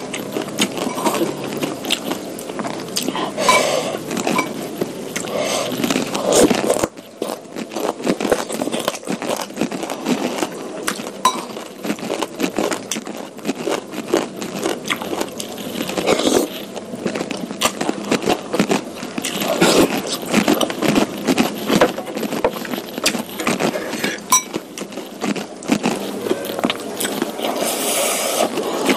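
Close-miked eating sounds: wet chewing, smacking and slurping of soupy curry noodles and beef meatballs, a dense run of small clicks and crackles with short pauses.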